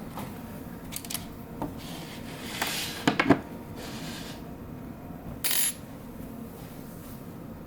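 Small metal lock parts and tools being handled and set down on a hard surface: a few sharp metallic clicks and clinks, loudest about three seconds in, then a short rattle about five and a half seconds in.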